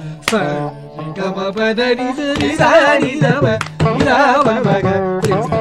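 Carnatic music: a veena playing a melody with plucked notes and sliding, ornamented pitches, over mridangam strokes.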